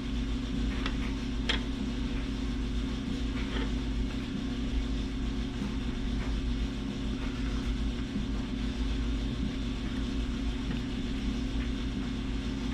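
Steady low hum of a motor or fan running, with a few faint ticks in the first few seconds.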